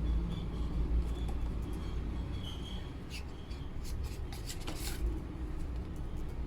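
Scattered light clicks and taps, a few of them clustered about halfway through, over a steady low rumble.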